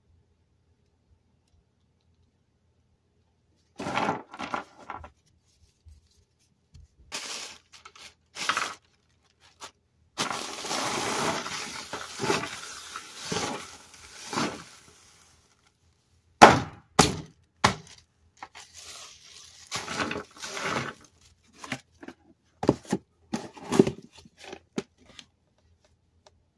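Clear plastic air-pillow packing being handled, crinkling and crackling in irregular bursts that start about four seconds in, with a few sharp cracks and clicks in between.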